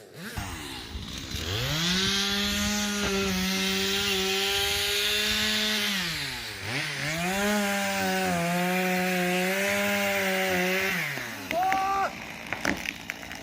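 Stihl MS250 two-stroke chainsaw revved up and cutting into wood at full throttle. It eases off briefly about halfway through, then cuts again and winds down to idle near the end. A few knocks follow.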